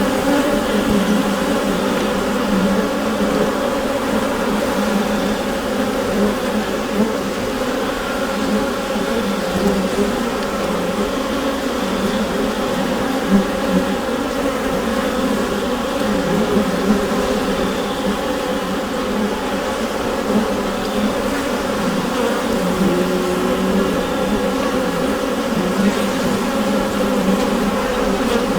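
Honeybee colony buzzing inside the hive: a dense, steady hum of many wingbeats, with no pauses.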